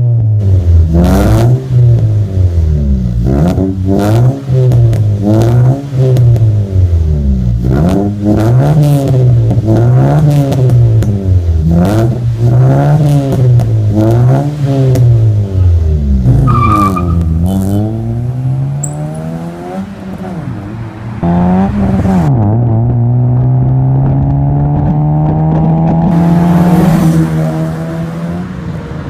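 2010 Honda City's four-cylinder i-VTEC engine, breathing through an aftermarket full exhaust and air intake, revved up and let fall again and again, about once every two seconds. Later the car accelerates steadily in one gear, its exhaust note climbing for several seconds before dropping away.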